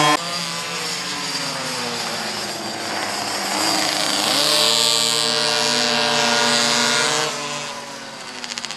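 Pocket bikes racing, their small two-stroke engines buzzing at high revs, several at once. The pitch slides up and down as they accelerate and lift off through corners, climbs about halfway through, then drops and fades near the end.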